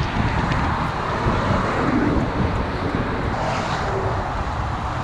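Wind buffeting the microphone while riding: a steady rumbling rush.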